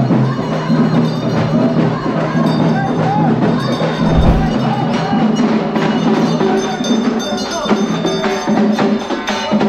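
Loud festival procession music: dense, rapid percussion strikes over steady held low tones, with crowd voices mixed in. A single low thump comes about four seconds in.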